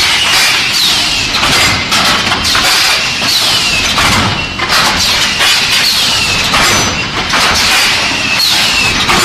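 Automatic hot-forging machine for railway screw spikes running under steady machinery noise, with repeated metallic knocks and clanks and a short squeal falling in pitch about once a second.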